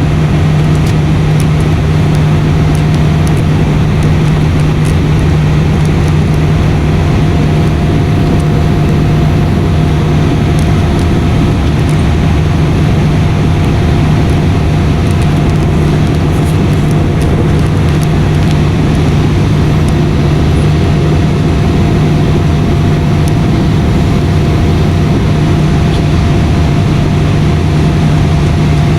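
Airliner cabin noise in flight: the engines and rushing air make a steady drone with a strong low hum and a fainter, higher steady tone.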